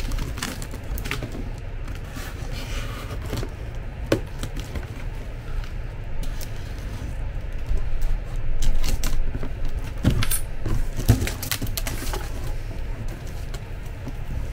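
Plastic stretch film being slit with a knife and pulled off a cardboard box: irregular crinkling, rustling and scraping with scattered sharp clicks, busiest about eight to twelve seconds in, over a steady low hum.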